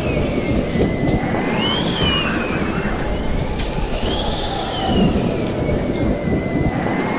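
Tornado sound effect: loud rumbling wind with a whistling howl that rises and falls about every two and a half seconds.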